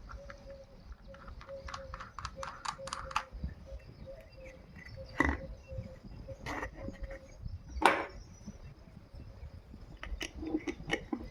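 A quick run of light clicks and taps, then three louder sharp knocks about a second and a half apart, with more clicks near the end, over a faint steady hum.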